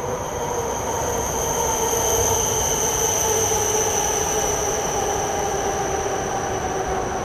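E5 series Shinkansen train pulling in alongside the platform and slowing, a steady rush of running noise with a high whine and several tones that slowly drop in pitch as it decelerates.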